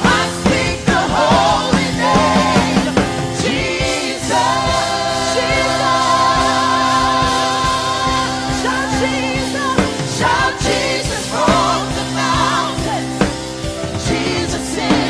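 Live worship band and singers performing a song of praise, the band holding sustained chords under wavering held vocal lines.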